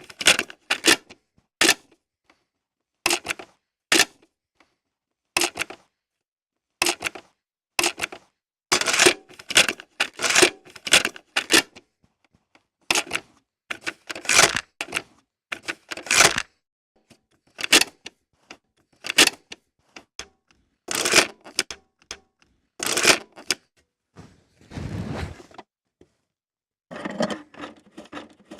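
Cassette tape deck eject mechanism clicking and clunking, repeated many times: sharp clicks in quick pairs and clusters with short pauses between. Near the end comes a brief rough rumble, then a run of rapid rattling clicks.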